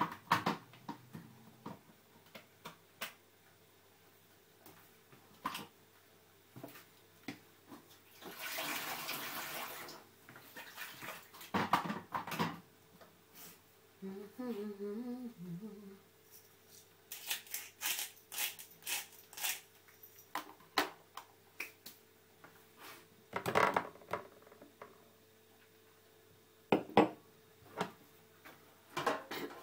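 Kitchen clatter of plates, pans and utensils being handled, in clusters of clinks and knocks. A brief rush of water comes about eight seconds in, and a person hums a few notes around fourteen seconds in.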